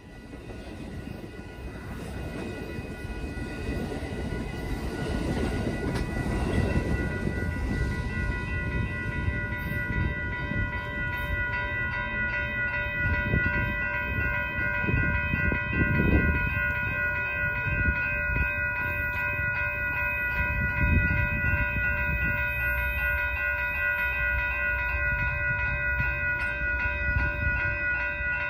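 Grade-crossing warning bell ringing steadily while the last cars of a Pacific Surfliner passenger train roll over the crossing in the first several seconds. After that the bell keeps ringing over a low rumble that swells and fades.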